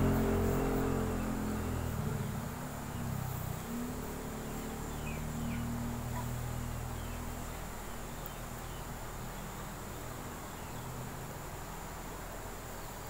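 Quiet background ambience. A low engine-like hum fades away over the first few seconds, leaving steady hiss with a faint, continuous high-pitched tone.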